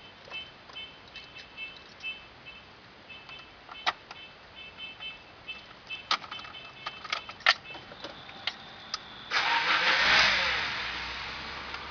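Repeated high electronic beeping and scattered clicks, then about nine seconds in a Ford Escort's AP four-cylinder engine cranks, fires and settles into idle.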